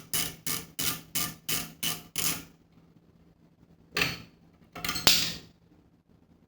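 Ratchet wrench working a bolt loose on the motorcycle's horn mount: about eight quick ratcheting strokes, roughly three a second, for the first two and a half seconds. Two short, louder clattering noises follow about four and five seconds in.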